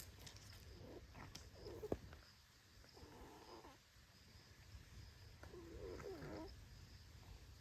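A few faint cat meows, the longest one near the end falling in pitch.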